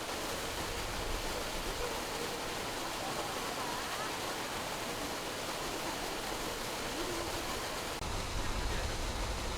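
Steady rushing noise, with faint distant voices underneath; a low rumble joins in near the end.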